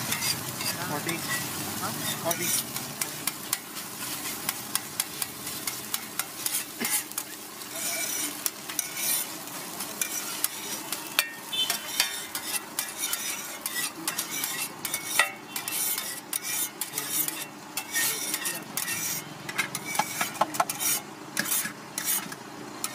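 Metal spatula scraping rapidly and irregularly across a large flat iron griddle (tawa) and knocking against a steel bowl, pushing fried egg off the hot surface, with sizzling underneath and sharper clinks now and then.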